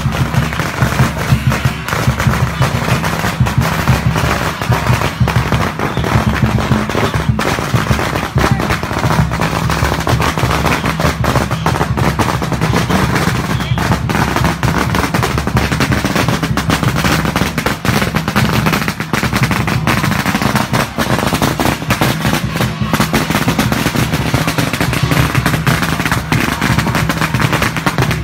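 Strings of firecrackers going off in a long, continuous rapid crackle, with music underneath.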